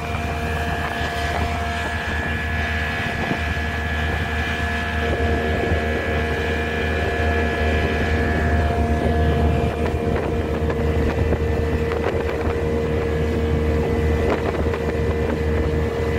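A boat's engine running steadily with a constant low drone and a few steady humming tones, mixed with the rush of water and wind on the microphone.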